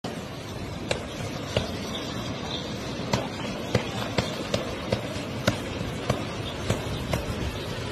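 Footsteps thudding on grass, a little more than one a second and irregular, over a steady rushing noise.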